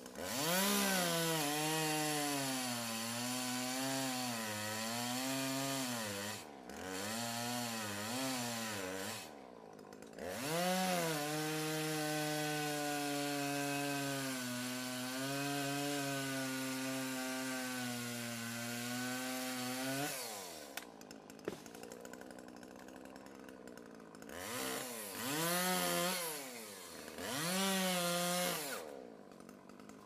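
Petrol chainsaw revving up and cutting through small trees. Its engine pitch sags and recovers as the chain bites, then falls back to a lower idle between cuts: about a third of the way in, again about two-thirds in, and near the end.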